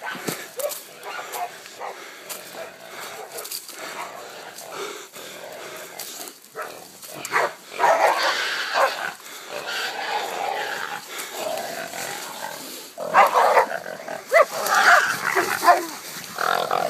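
Hunting dogs barking and a caught feral sow squealing as the dogs hold her. The noise grows louder about halfway through and is loudest near the end.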